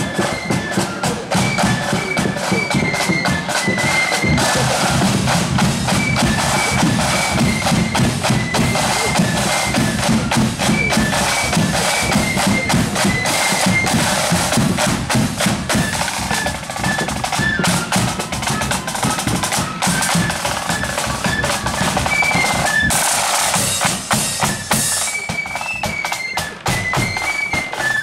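Marching flute band playing: flutes carry a stepping melody over the steady beat of side drums and bass drum.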